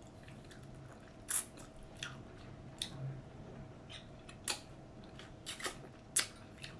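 A person eating lobster from the shell, chewing with sharp wet clicks and smacks of the lips and mouth about once a second.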